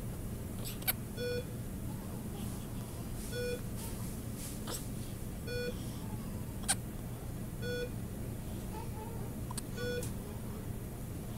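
A short electronic beep from NICU medical equipment repeating about every two seconds, five times, over a steady low hum, with a few sharp clicks in between.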